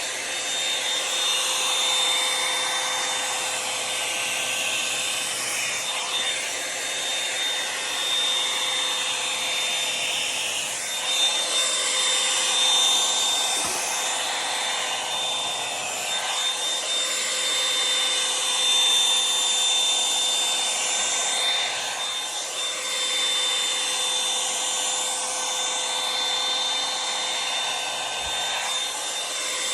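Revlon One-Step hot-air brush dryer running continuously with a steady motor whine under its airflow, the whoosh swelling and dipping every few seconds as it is worked through the hair.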